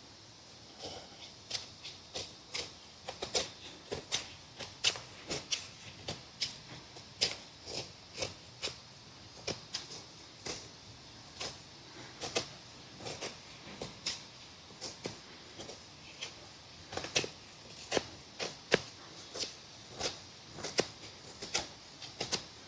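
Ozark Trail 11-inch fixed-blade knife shaving curls off a piece of dry firewood for a feather stick. It makes repeated short scraping strokes, one or two a second at an uneven pace.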